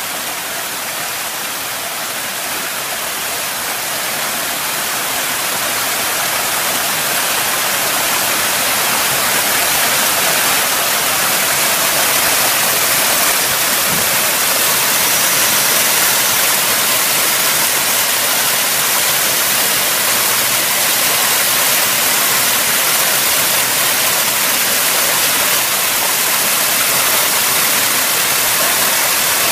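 Small waterfall pouring over granite into a rock pool: a steady rush of falling and splashing water that grows louder over the first ten seconds or so, then holds steady.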